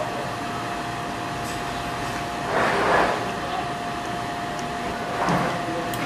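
Steady background hum with one constant mid-pitched tone. Over it come two short scraping, rustling handling noises, about two and a half seconds in and again near the end, as the plastic handlebar switch housing of a motorcycle is worked open by hand.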